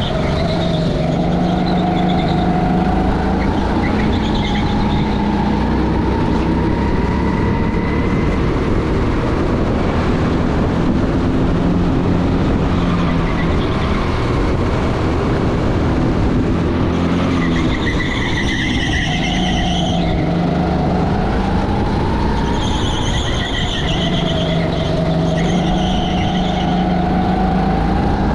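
Motor of a radio-controlled model running continuously, its whine rising and falling in pitch as the throttle changes, with sharper high-pitched whining about two-thirds of the way through and again near the end.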